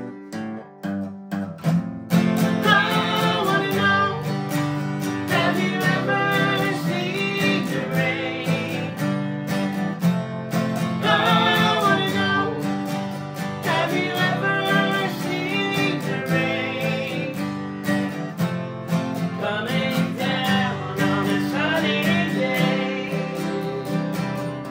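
Two acoustic guitars strummed steadily while a man and a woman sing together. The voices come in about two seconds in, over the guitars.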